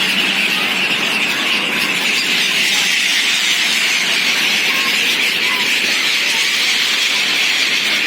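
A large flock of gulls calling all at once, merging into a continuous high-pitched squealing din, with a few single calls standing out now and then.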